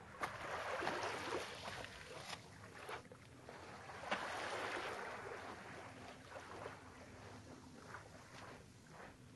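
Small waves washing onto a sandy, rocky shore: two swells of hiss, one just after the start and one about four seconds in, each fading over a second or two.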